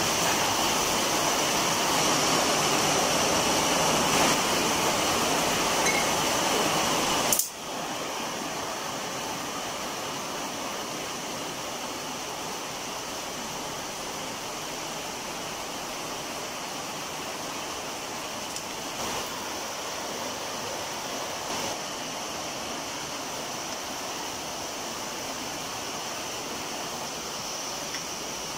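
Steady hiss of heavy rain falling. About seven seconds in it drops sharply in level and then carries on evenly.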